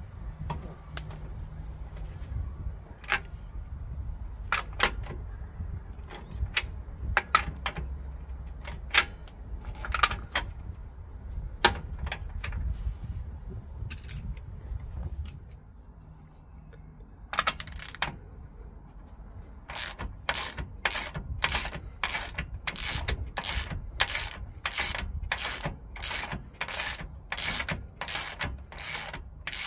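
Scattered metallic clinks and taps of tools on the rear brake drum and hub, over a low background rumble. From about two-thirds of the way in, a ratchet spanner clicks steadily about twice a second as it is worked back and forth at the hub.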